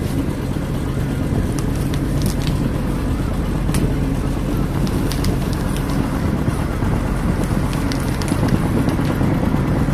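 Fishing boat's engine running steadily underway, with water rushing along the hull and a few faint clicks.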